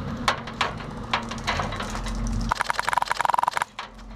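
Vehicle engine running with a low steady hum, under scattered sharp cracks of airsoft gunfire. About two and a half seconds in, a buzzing rapid rattle lasts for about a second.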